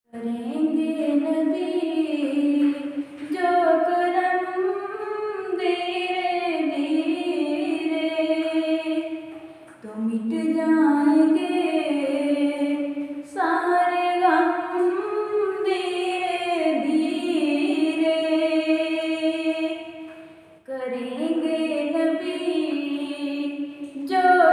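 A woman singing a Ramadan naat unaccompanied, in long, melodic held phrases, with short breaks about ten and twenty seconds in.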